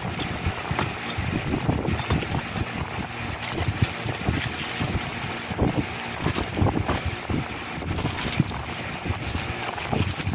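Plastic packaging and cardboard rustling and crinkling as parts are rummaged through in a box, with irregular small knocks.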